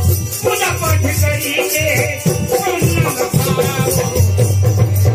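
Live Himachali folk music: a man's voice singing through a microphone and loudspeaker over a steadily pulsing drum and a continuous rattling percussion.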